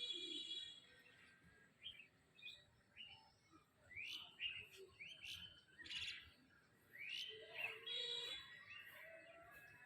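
A bird calling in a series of short, arched chirps, several in quick succession in the middle of the stretch.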